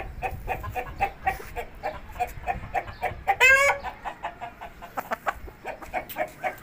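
Chickens clucking in a steady run of short clucks, about three or four a second, with one louder, drawn-out squawk about three and a half seconds in.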